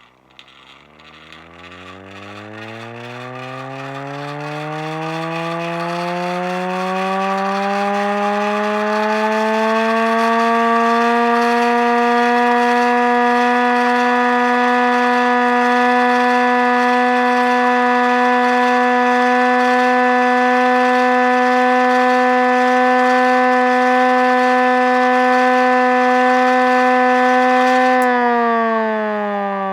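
Vixen Horns VXS-1000P hand crank siren wound up by hand: its wail rises steadily in pitch over about ten seconds, then holds one steady, loud tone. Near the end the pitch starts to fall as the rotor spins down.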